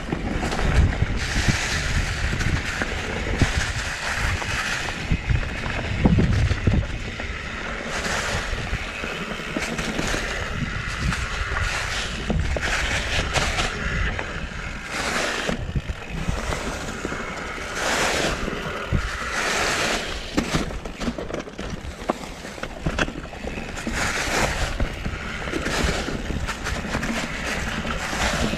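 Mountain bike riding a rough trail: tyres rumbling over dirt and rocks, the bike rattling and clicking over bumps, with wind buffeting the microphone in irregular surges.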